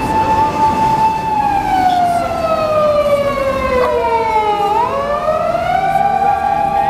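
Boston terrier howling, set off by an ambulance: one long loud howl whose pitch holds, then slides slowly down and jumps back up about five seconds in. A second, fainter wavering tone joins partway through.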